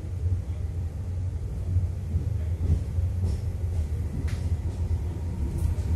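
Regional passenger train pulling out of the station, heard from inside the carriage: a steady low rumble from the wheels and running gear, with a few faint clicks.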